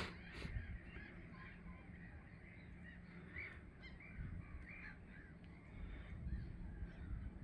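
Faint chorus of gulls calling: many short, overlapping calls from a flock out on the water, with two sharp clicks at the very start.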